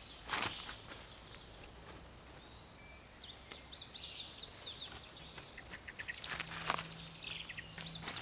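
Songbirds chirping, with one sharp high chirp about two seconds in. Near the end, plastic wrap crackles as it is pulled off the roll and stretched around a wooden frame.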